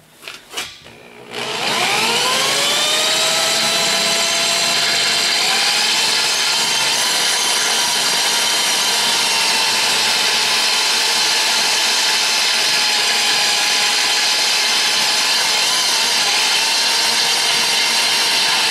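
Electric drill spinning up and running steadily under load as a small twist bit bores a pilot hole through a metal mounting plate. A few clicks come first, then the motor whine rises and settles about a second and a half in.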